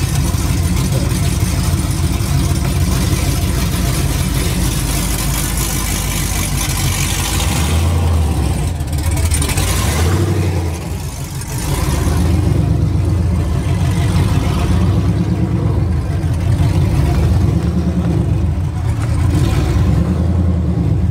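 Cammed 5.3 V8 of a Chevrolet Silverado running on open headers, heard from inside the cab: a loud, harsh exhaust note while pulling away and driving slowly. About eleven seconds in it eases briefly, then settles into a heavy, pulsing low rumble.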